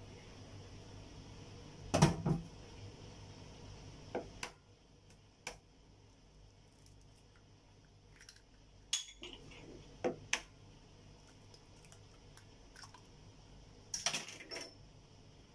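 Kitchen clinks and knocks: eggs cracked on the rim of a glass mixing bowl and glassware handled, a handful of short sharp taps scattered over the few seconds, the loudest about two seconds in and a quick cluster near the end.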